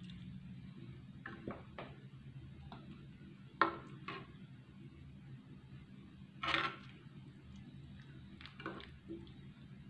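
Metal spatula knocking and scraping against a wok while scooping out coconut-milk curry, with a handful of short clinks and one longer scrape past the middle. A low steady hum runs underneath.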